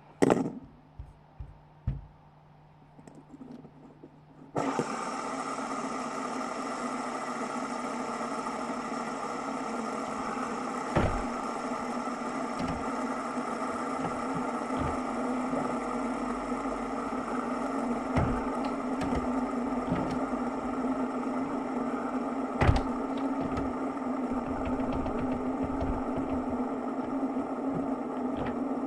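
A few light knocks, then about four and a half seconds in a small motor switches on abruptly and runs with a steady, even whir, a low hum under a higher whine, with occasional knocks over it.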